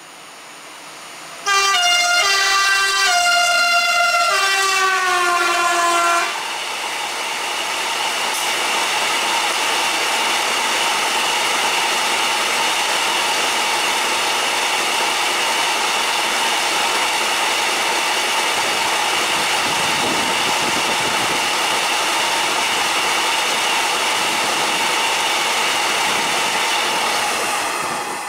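E6ACT Newag Dragon electric freight locomotive sounding a long horn blast, the RP1 'attention' signal, as it passes, the horn's pitch dropping with the Doppler effect. After the horn stops a few seconds in, a long train of open coal wagons rolls past with a steady rolling noise that fades near the end.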